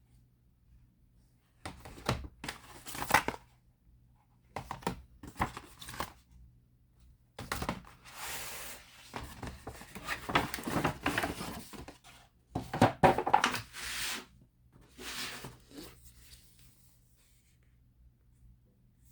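Packaging being torn and crinkled by hand in about six bursts of a second or two each, with quiet gaps between, as a new phone's sealed box is unwrapped.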